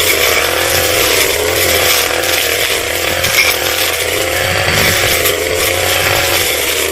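Petrol brush cutter running at high revs, its engine pitch wavering slightly as it works under load.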